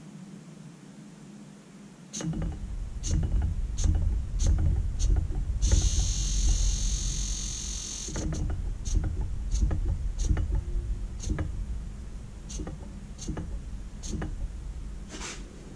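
Rebuilt Holley electric fuel pump running on the bench, powered through hand-held leads: its motor hums low from about two seconds in, with irregular sharp clicks throughout and a hiss for a couple of seconds in the middle. The once-seized pump is working again.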